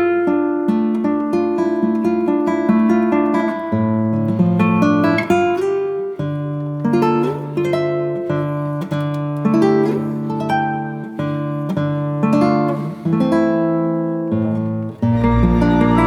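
Background music led by plucked acoustic guitar, notes picked one after another; a fuller, deeper section with a low bass comes in about a second before the end.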